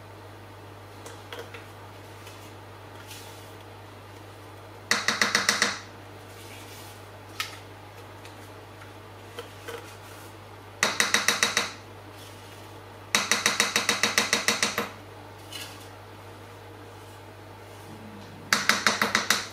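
Quick runs of metal taps on a stainless-steel Thermomix mixing bowl, in four bursts of about a second each, as the batter is knocked out of the bowl into a cake tin. Scattered small clicks come between the bursts.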